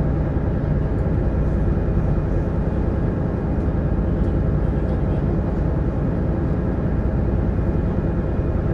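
Steady low drone of a tour boat's engine under way, heard on board, with no change in pitch or level.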